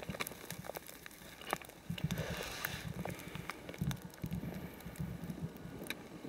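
Rustling and crackling of moss and dry pine needles as a porcini mushroom is pulled from the forest floor and handled, with scattered sharp clicks and irregular low thuds.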